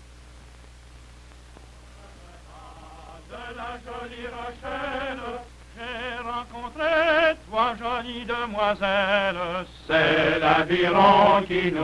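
Men's voices singing with vibrato on the old film soundtrack. After a couple of seconds of hiss and hum, a voice enters about three seconds in, and the singing swells into a louder chorus near the end.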